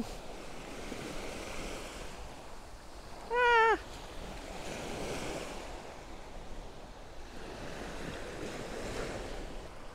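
Small sea waves washing in over a sandy shore, the surf swelling and easing every few seconds. A single short high-pitched call sounds about three and a half seconds in.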